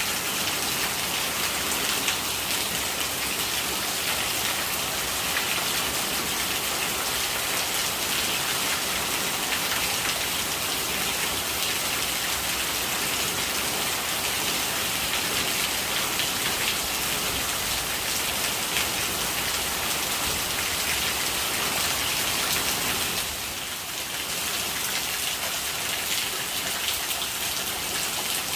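Steady rain falling on a surface, a dense patter of drops with gurgling rainwater, dipping briefly in level near the end.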